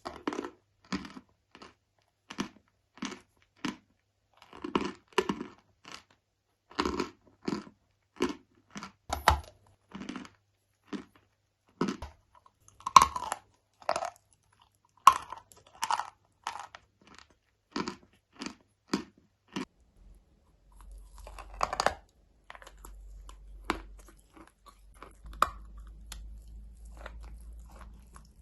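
Close-miked crunching bites and chewing of a dry, chalky block, sharp crunches coming roughly once a second. In the last several seconds the crunches thin out to a few soft sounds over a low hum.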